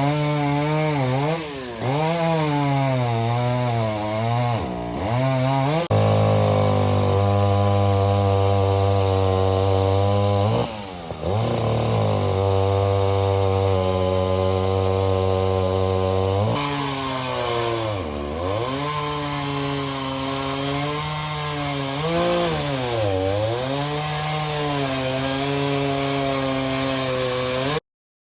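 Vintage two-stroke chainsaw revving up and down, then held at a steady speed twice with a brief dip between, as it cuts wood. It goes back to revving up and down, then cuts off abruptly near the end.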